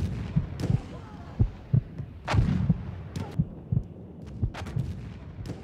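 Airsoft gunfire: scattered sharp cracks of shots at uneven intervals, over dull low thuds.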